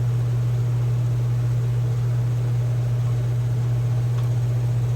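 A motor running with a steady low hum and nothing else standing out.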